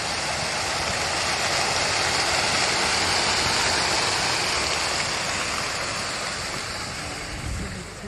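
Rows of water jets in a park fountain splashing down into a shallow basin: a steady rushing splash, loudest midway and fading near the end.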